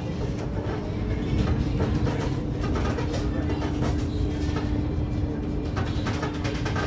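Inside an electric city bus on the move: low road rumble and small cabin rattles, with a steady hum throughout.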